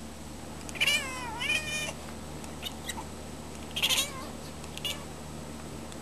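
A domestic cat meowing at wild birds it is watching. There is a long meow with a wavering pitch about a second in and a shorter call near four seconds, with a few faint ticks between.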